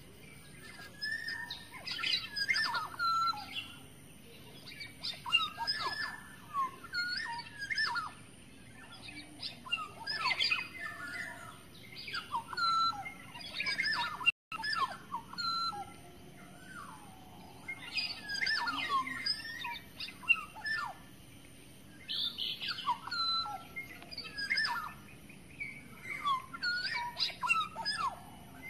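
Black-naped oriole (kepodang) calling: bouts of short whistled and chattering notes every two to four seconds, with a momentary cut-out of all sound about halfway.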